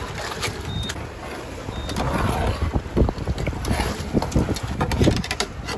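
Wind on the microphone and water sloshing beside a small metal boat, with a few sharp knocks and splashes as a hooked fish is brought to a landing net at the side.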